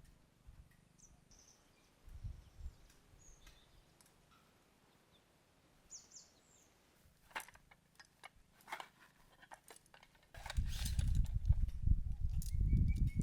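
Quiet outdoor ambience with a few short, faint bird chirps and scattered light clicks. About ten seconds in, a much louder low rumbling with clicks and rustles starts, like wind or handling noise on the microphone.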